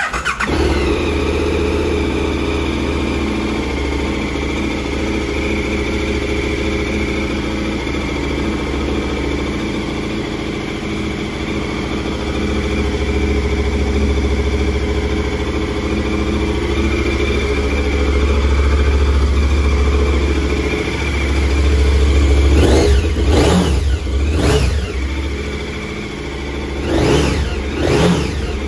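KTM 1290 Super Adventure S's 1301cc V-twin engine starting up suddenly, then idling steadily. In the last several seconds the throttle is blipped several times, the revs rising and falling back each time.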